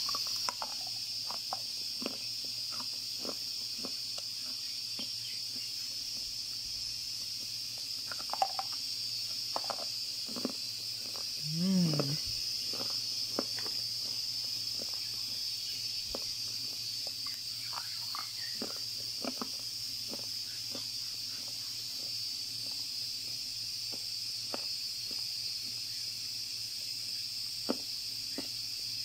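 Lumps of edible gypsum clay being chewed: scattered soft crunches and clicks over a steady high hiss, with a brief low hum about twelve seconds in.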